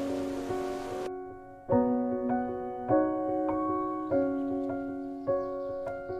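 Soft background piano music: slow, gentle chords struck at an even pace, each note ringing and fading. A steady hiss like rain or rushing water lies under it and cuts off about a second in.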